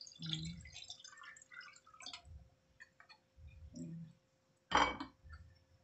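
Broth splashing and dripping as it is poured into an aluminium wok of raw chicken pieces, then a ladle stirring in the pot, with one loud sharp knock about five seconds in.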